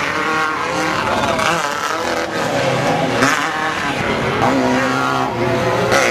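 Off-road race vehicles' engines running and revving, several at once, their pitch rising and falling.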